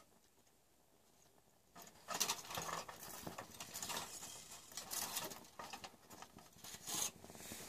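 Crumpled aluminium-foil windscreen being handled and rustling and crinkling in irregular bursts, starting about two seconds in after a quiet moment.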